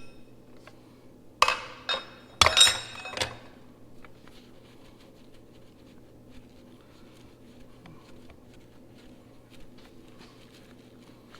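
Metal parts clanking and clinking: a few sharp, ringing knocks between about one and a half and three seconds in, then only faint light ticks.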